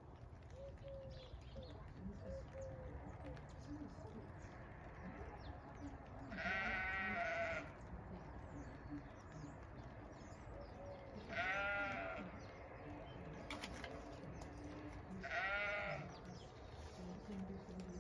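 A sheep bleating three times, a few seconds apart, each a quavering call about a second long. Fainter low calls sound softly in between.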